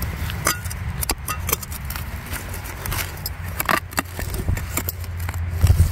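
Digging in soil with a hand tool: repeated short scrapes and clicks as dirt and stones are worked loose, over a low steady rumble.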